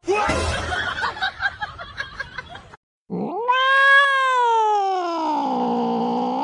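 A short stretch of busy, rapidly fluttering noise cuts off, then a cat yowls one long drawn-out call that rises, peaks and slowly sags in pitch.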